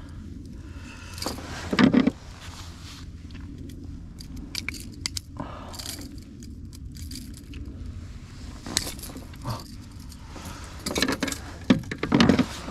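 Fishing tackle being handled: light metallic jingling and scraping with scattered clicks, and a few louder knocks about two seconds in and near the end.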